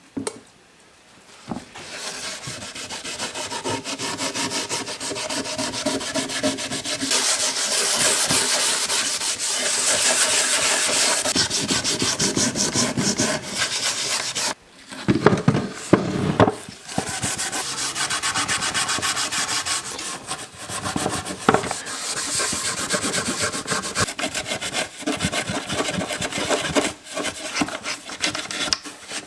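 Vigorous rubbing by hand on the wooden body of a vintage toolbox, in rapid back-and-forth strokes. It stops briefly about halfway, with a few knocks, then goes on.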